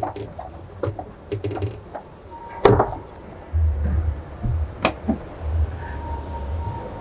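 Handling clicks and knocks of a compressed-air hose nozzle being stowed in a small fibreglass side locker, then the locker door shutting with a knock and its latch clicking. Underneath are a low hall rumble and faint background music.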